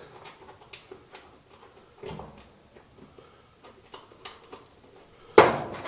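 Small scattered clicks and ticks of a screw being started and turned into a dryer's belt-tensioner bracket by hand, with one sharp knock near the end.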